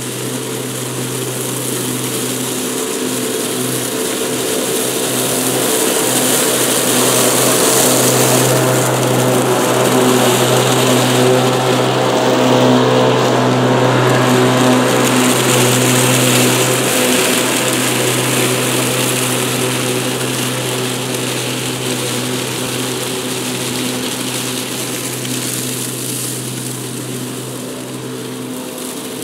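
PowerSmart 80V 26-inch cordless dual-blade lawn mower running under load, its two electric motors giving a steady hum over the hiss of blades cutting thick grass and dry leaves. It grows louder toward the middle and eases off near the end.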